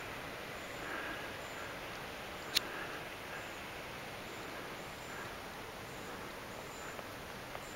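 Steady rushing of a river below a dam spillway, with faint chirps here and there and a single sharp click about two and a half seconds in.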